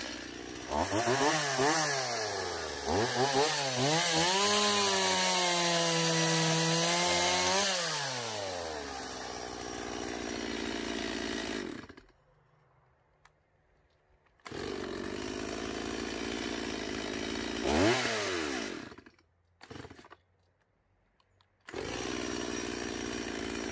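Stihl MS 170 two-stroke chainsaw running well after a fuel-line and carburettor replacement. It is revved up and down several times in the first eight seconds, then settles to a steady run. The sound cuts out abruptly twice for a couple of seconds, with one more short rev before the second break.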